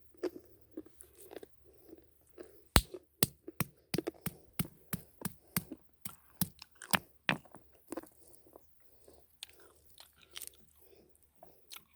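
Someone chewing the fresh kernel of a licuri palm nut close to the microphone: a run of sharp crunches, a couple a second and densest in the middle, with soft chewing between them.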